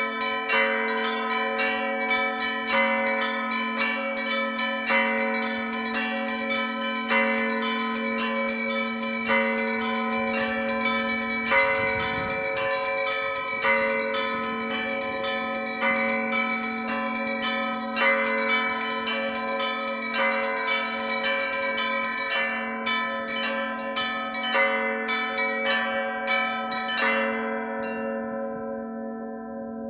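Orthodox church bells ringing a zvon: quick strikes on the small bells in a repeating pattern over the long, steady hum of the larger bells. Near the end the strikes stop and the bells ring out.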